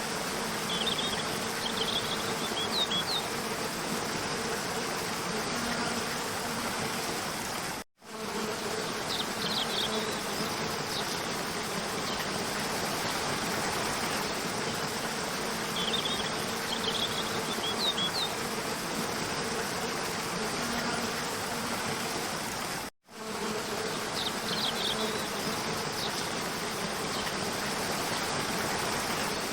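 Rushing stream water splashing over rocks, a steady even rush, with a faint low buzzing hum under it and small clusters of short high chirps every several seconds. The sound cuts out abruptly twice, at about 8 seconds and 23 seconds, and comes straight back.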